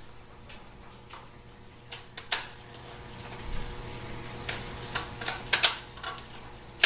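Snap ring pliers working at a stubborn snap ring on an automatic transmission's transfer gear: scattered metallic clicks and taps, busier from about four and a half seconds in and ending with a sharp click. A faint steady hum lies underneath.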